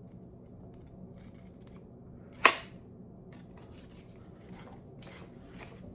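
A single sharp snap about two and a half seconds in, as a homemade lever-arm knife is pressed down and chops through cardboard. Faint clicks and rustling of handling follow.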